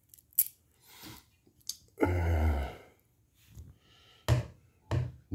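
MTech USA Spider balisong (butterfly knife) handled and shaken, giving a few light metal clicks that show little blade tap or play. A short breathy sigh about two seconds in.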